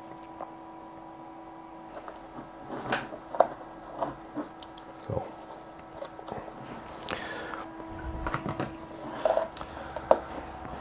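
Hands handling a pair of rubber-coated plastic FPV video goggles: scattered small knocks, taps and rustles of the shell and foam padding, over a faint steady hum.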